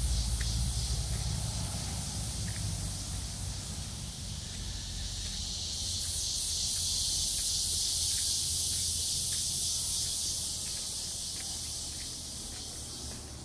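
A high-pitched, slightly pulsing buzz of insects in the trees, swelling louder about halfway through and easing off near the end, over a low rumble that fades in the first few seconds.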